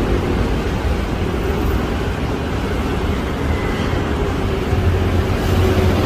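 Steady road traffic noise: the engines and tyres of cars and trucks on a busy multi-lane road.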